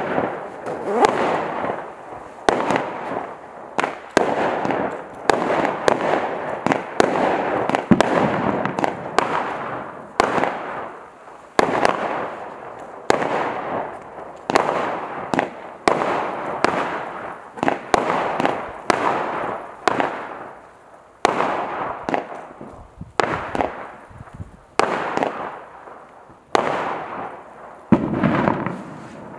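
A 30-shot 16mm consumer firework barrage cake firing its shots in steady succession. Each shot is a sharp bang, coming about once a second and trailing off before the next.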